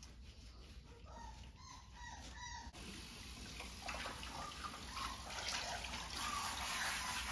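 Four-week-old yellow Labrador puppy whimpering in short, repeated high cries during a bath. About three seconds in, a kitchen faucet's pull-down sprayer comes on and water runs over the puppy while the whimpering goes on.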